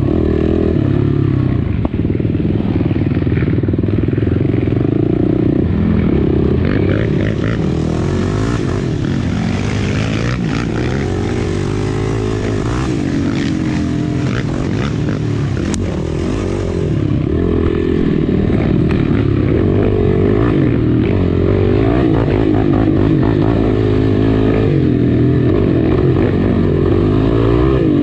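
Racing quad's engine revving up and down under hard throttle as it is ridden along a rough dirt trail. The engine note climbs and drops with each throttle change.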